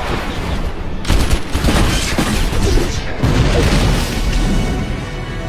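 Action-film battle sound over dramatic music: bursts of gunfire and booms as a fighter jet is hit and its engine catches fire. Sudden loud hits come about a second in and again about three seconds in.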